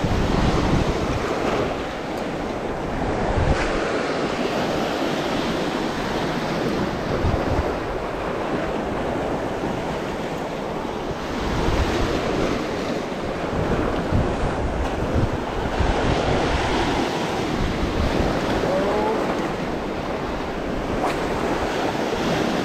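Sea waves breaking and washing over shoreline rocks, swelling and easing, with wind buffeting the microphone.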